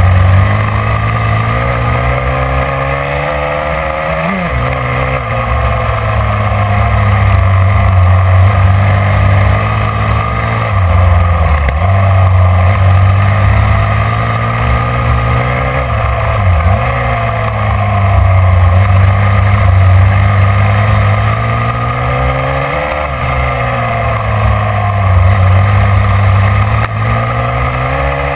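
Motorcycle engine running hard close to the microphone, its pitch climbing under throttle and dropping sharply about four times as it shifts or comes off the throttle, then climbing again.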